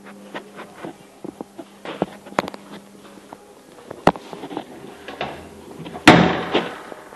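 Scattered light clicks and knocks, then one loud bang about six seconds in that dies away over about a second.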